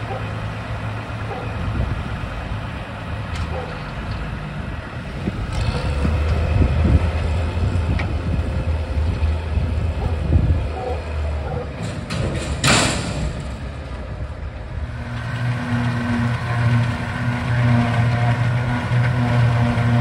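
New Holland 8160 tractor's diesel engine running while its trailer tips a load of silage, with a brief loud rushing noise about two-thirds of the way through. In the last few seconds a different, steadier engine hum takes over.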